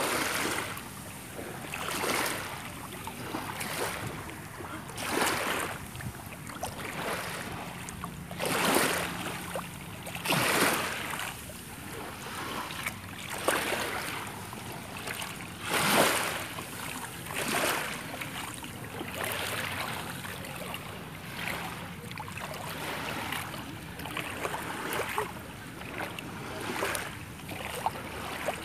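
Small waves washing up on a sand and pebble shore, a rushing surge every two or three seconds.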